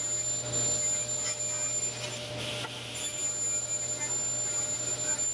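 Table saw running with a steady low hum and a high, thin whine while pine boards are ripped along the fence, with short stretches of hissy cutting noise.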